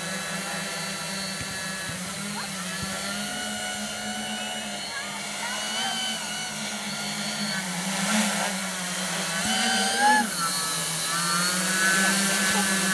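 Six small brushless motors of a JAF hexacopter, turning 11x5-inch propellers, hovering with a steady propeller hum and a motor whine whose pitch wavers as the throttle corrects. It grows louder, with the whine rising, about ten seconds in.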